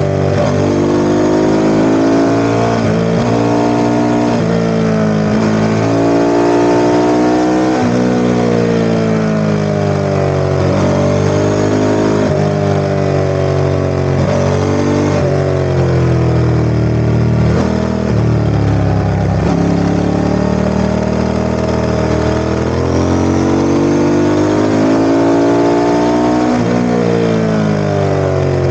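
Ducati ST4S's 996 cc L-twin engine running hard, its revs climbing and then dropping again and again, about a dozen times in quick succession.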